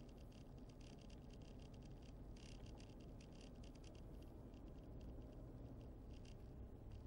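Faint, steady low rumble of a car driving slowly, heard from inside the car, with light irregular ticking over it.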